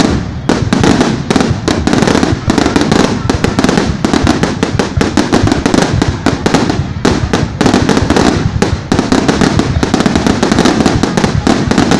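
Fireworks exploding in a dense, continuous barrage: many sharp bangs and crackles a second with no let-up.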